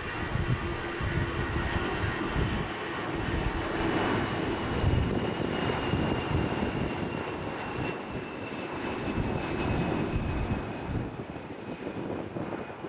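Departing airliner's engines at takeoff power: a heavy rumble with a high whine that slowly falls in pitch as the aircraft passes, easing off near the end.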